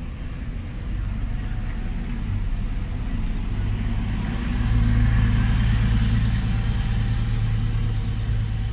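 MAN city bus passing at close range, its engine running with a deep rumble. The rumble grows louder about four to five seconds in and holds there.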